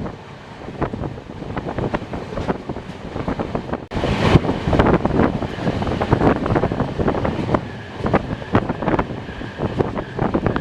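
Moving passenger train heard from on board, with wind buffeting the microphone over the running noise and many irregular knocks of the wheels and coaches. The rush swells louder about four seconds in, and a faint thin steady tone comes in past the middle.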